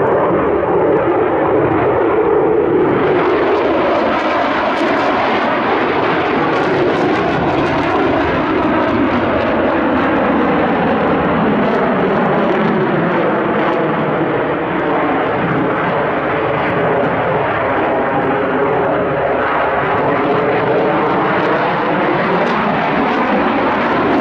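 Twin-engine Sukhoi Flanker-type jet fighter flying a display, its engines giving a steady loud jet noise with slowly sweeping tones as it passes.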